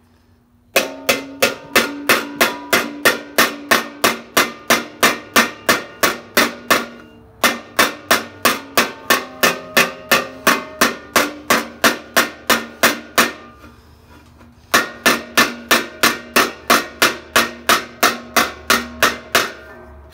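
Fullering hammer striking a steel armour plate held over a steel stake, about four quick, even blows a second in three runs with short pauses between, each blow ringing from the metal. The blows are refining fullered grooves in the plate.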